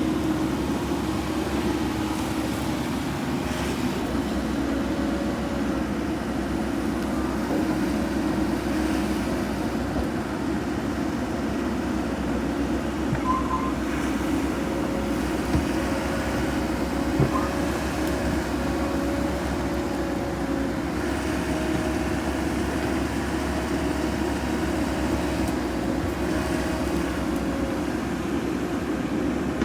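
Heavy-equipment diesel engine running steadily, with a faint whine on top and a few light knocks in the middle.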